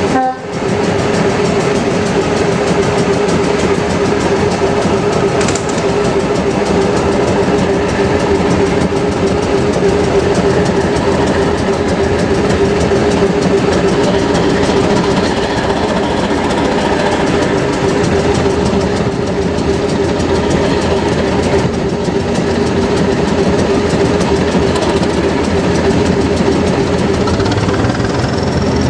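Class 207 'Thumper' diesel-electric multiple unit under way, its English Electric diesel engine running steadily with a strong droning note over the train's running noise on the rails. A faint high whine rises near the end.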